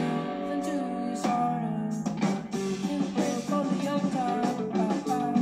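Rock song with guitar and singing, played from a vinyl record on a turntable.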